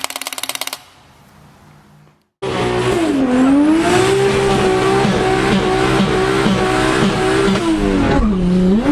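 A car engine revving up and down, with tire squeal. Before it there is a short, rapid run of clicks.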